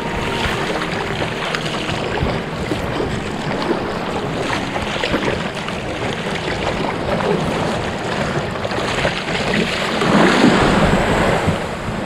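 Sea water lapping and splashing around a fishing kayak, with wind noise on the microphone. It swells louder for a couple of seconds near the end.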